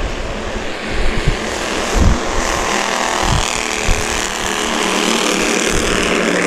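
Engines of several small Bandolero race cars running around the oval, a steady drone that builds slightly partway through, with scattered low thumps on the microphone.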